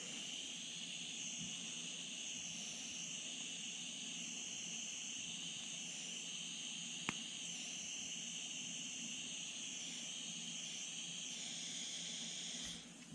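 Handheld gas pencil torch hissing steadily while its flame heats solder on a brass carburetor float; the hiss cuts off near the end as the torch is shut off. A single sharp click about seven seconds in.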